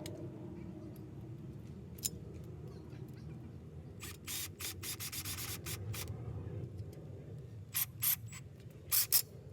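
Hand-work noises from mounting and wiring a porch light fixture: a quick run of short rubbing scrapes about four seconds in, then a few sharper scrapes near the end, over a low steady background rumble.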